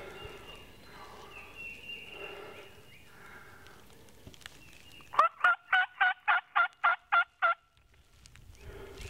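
A hunter's mouth-blown turkey call sounding a run of about nine loud yelps, about four a second, calling like a hen to draw in a gobbler. The run starts about five seconds in and lasts a little over two seconds.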